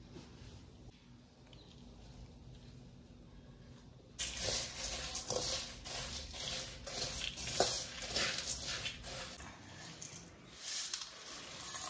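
A metal spoon stirring and tossing dry puffed rice in an aluminium kadai: dense rustling and crunching with the spoon scraping and clicking against the pan. It starts about four seconds in, after a faint low hum, and eases off briefly near the end.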